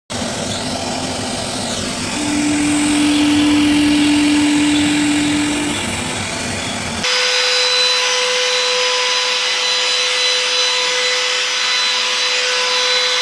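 Woodworking power machinery running: a dense machine noise with a steady hum that swells about two seconds in and eases off, then an abrupt cut about seven seconds in to a different machine with a steady higher whine.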